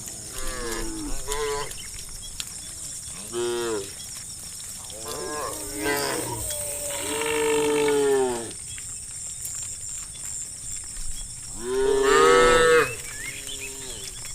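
Cows mooing in turn: about six separate moos, each rising and then falling in pitch. The longest, about a second and a half, comes around halfway, and the loudest near the end.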